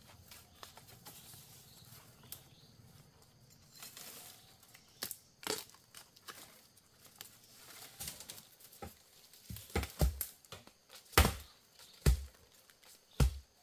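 Crinkling and tearing sounds, then from about eight seconds in a run of sharp, heavy knocks roughly a second apart.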